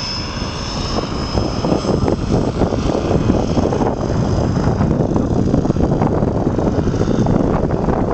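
Gusty wind buffeting the microphone, getting louder after the first second or so. Over it, the high steady whine of a Swift 16 electric RC plane's motor and propeller fades out over the first couple of seconds.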